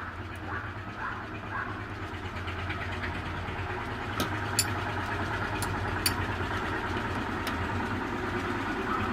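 Semi-automatic box strapping machine's motor running with a steady hum, with a few sharp metallic clicks about halfway through.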